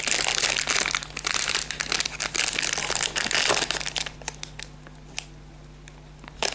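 Blind-box toy packaging crinkling and crackling as hands work at opening it, with many small sharp crackles. About four seconds in it goes much quieter, leaving only a few isolated clicks.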